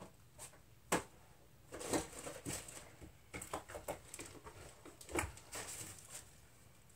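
Parts and tools being shifted and handled while searching a workshop shelf: scattered clinks and knocks, the sharpest about a second in.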